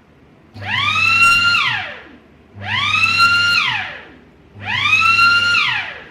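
Elbor W315 CNC hydraulic butt welding machine's alarm sounding three times, about two seconds apart. Each is a siren-like electronic wail that rises, holds and falls. It signals that the heating-up time is over and the heater must be taken off.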